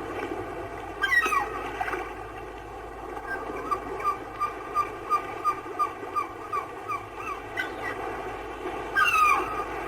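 Seagulls calling: a drawn-out cry falling in pitch about a second in, then a run of short, even, repeated notes at about three a second, and another falling cry near the end. A steady background noise runs underneath.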